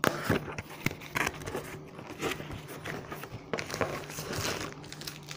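Packaging being handled as a diamond-painting kit is unpacked: irregular crinkling and rustling of plastic wrap and cardboard, with scattered small clicks and taps.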